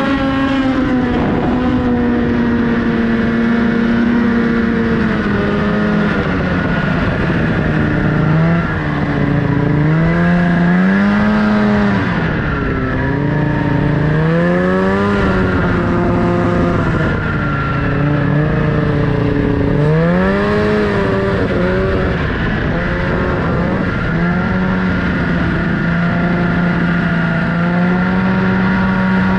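Snowmobile engine running and revving: its pitch holds steady at first, then rises and falls several times as the throttle opens and closes, then settles again near the end.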